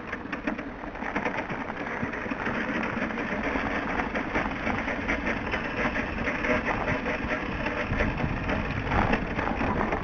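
Snow crunching under boots and the wheels of a snowblower being pushed by hand, its engine stopped because it ran out of gas; a dense run of irregular crunches.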